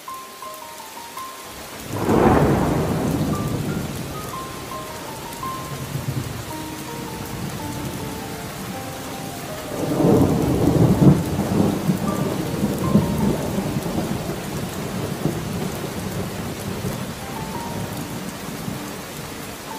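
Steady rain with two rolls of thunder: the first breaks about two seconds in, and a longer one about ten seconds in, each dying away over several seconds.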